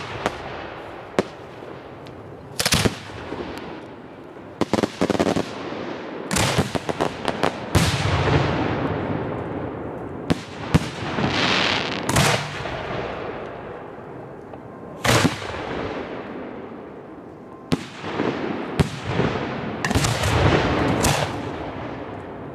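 Professional display fireworks: aerial shells fired from mortars and bursting overhead, with a sharp bang every second or two at an uneven pace. Many bangs trail off into crackle, and one shell crackles at length about eleven seconds in.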